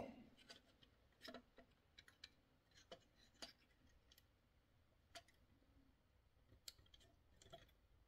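Near silence with a few faint, scattered clicks and taps: small plastic parts of a dryer timer and a metal pick tool knocking together as a spring-loaded piece is worked back into the timer.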